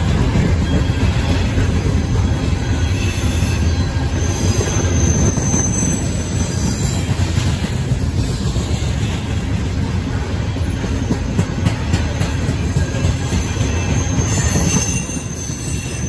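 Loaded coal hopper cars of a freight train rolling past: a steady rumble of steel wheels on rail. A faint high wheel squeal comes in about four seconds in and again near the end.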